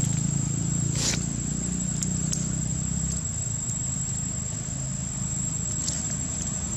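Steady outdoor background noise: a low hum under a thin, constant high-pitched whine, with a brief sharp crackle about a second in.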